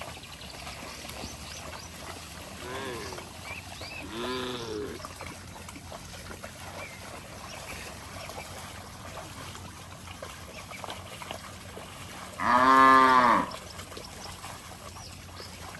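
Cattle mooing: two faint moos about three and four seconds in, then one loud moo lasting about a second near the end, its pitch rising and then falling.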